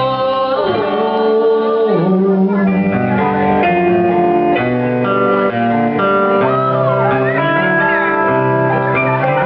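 Live band music with guitars to the fore, sustained notes changing about every second.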